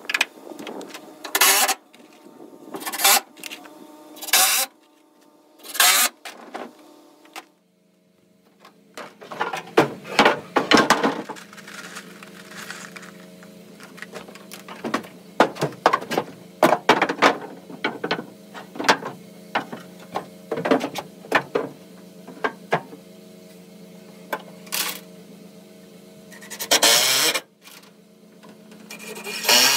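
Cordless drill driving screws into 2x4 framing lumber in short bursts, one after another. A steady low hum runs underneath from several seconds in until near the end.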